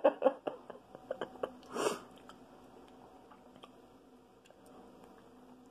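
Wet chewing of a bite of dill pickle: a string of quick clicks and smacks over the first two seconds, then only faint ticks.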